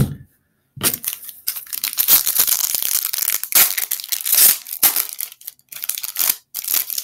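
Foil wrapper of a baseball card pack being torn open and crinkled by hand: a short click at the start, then from about a second in a long run of loud crinkling and tearing.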